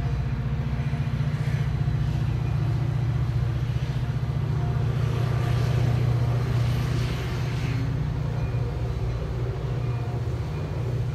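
Metra commuter train of bilevel coaches passing, a steady low rumble that swells a little about halfway through.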